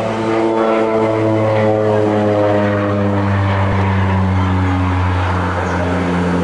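OV-10B Bronco's twin turboprop engines and propellers running loud and steady in flight, the pitch sliding slowly downward.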